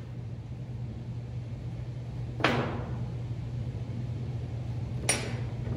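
Two metallic clunks, about two and a half seconds apart, as cast-iron vise parts are handled and set down on a steel welding table, over a steady low hum.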